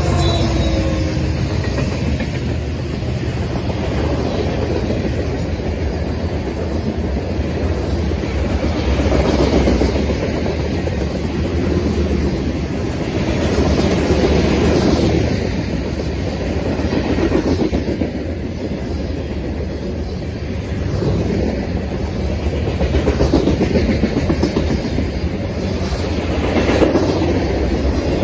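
Freight cars rolling past close by on steel wheels: a steady heavy rumble and clatter from the rails. It swells and eases every few seconds as each car passes.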